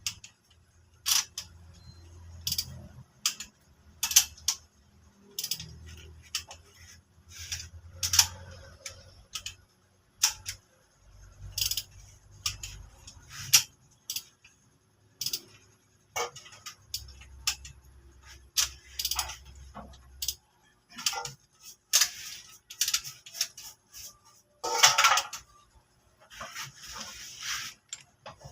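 Click-type torque wrench clicking again and again, a sharp metallic click every second or two, as bolt after bolt reaches its set torque during the second tightening pass of an engine top overhaul.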